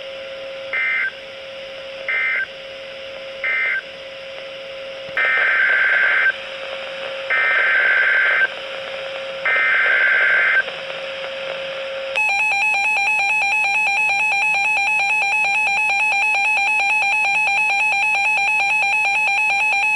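Emergency Alert System data bursts. Three short warbling end-of-message bursts are followed by three longer header bursts for the next alert, over a steady low tone. About twelve seconds in, the harsh two-tone EAS attention signal starts and holds steady.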